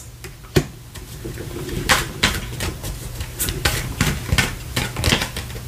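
Tarot cards being pulled from the deck and laid down, making a string of irregular soft snaps and clicks.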